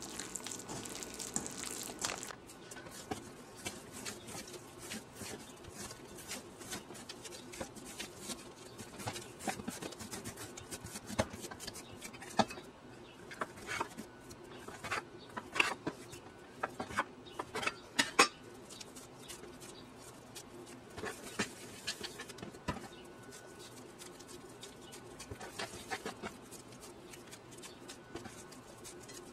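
Hands working crumbly butter-and-flour dough in a stainless steel bowl, a rustling scrape for the first two seconds. Then dough is pinched and pressed into lumps on a stone countertop: scattered soft taps and clicks, busiest in the middle, over a faint steady hum.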